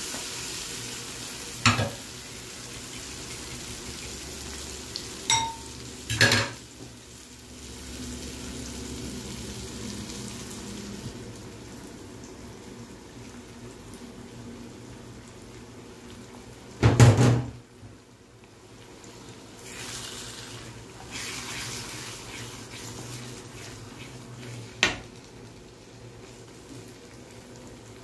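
Food frying and sizzling in a nonstick frying pan while a wooden spatula stirs and scrapes, with about five sharp clatters of utensils against the pan, the loudest about two-thirds of the way through.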